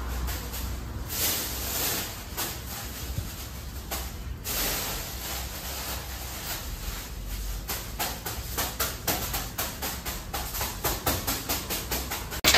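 Aluminium foil crinkling and rustling as it is worked around the top of a raw doner kebab cone, in short crackling bursts that come quicker and more evenly in the second half.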